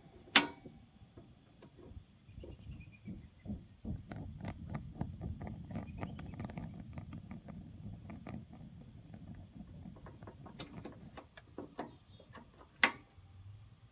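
Mr. Heater Portable Buddy propane heater being handled and set to high: a sharp click just after the start, then a run of light clicks and taps over a faint low rumble, and another sharp click near the end.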